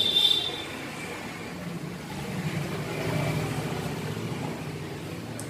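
An engine running with a steady low hum that swells a little in the middle. A sharp metallic clink rings out right at the start.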